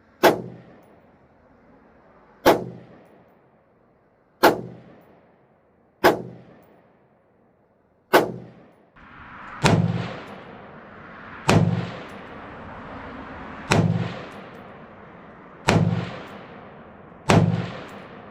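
Rifle fired shot after shot at a steady, unhurried pace, about one shot every two seconds, ten shots in all, each with a short echoing tail. About nine seconds in, a steady background noise comes up under the shots.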